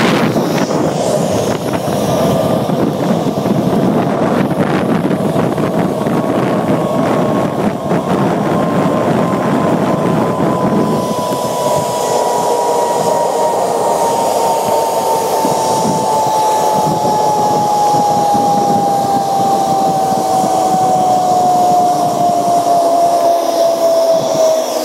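Zip-line trolley pulleys running along the steel cable, with wind rushing over the microphone. A whine from the trolley grows louder and falls slowly and steadily in pitch toward the end.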